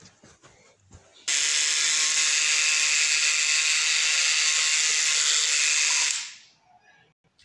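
Electric toothbrush buzzing against a rubber chicken toy's beak: a steady, loud motor buzz that starts suddenly about a second in, holds for about five seconds, then dies away.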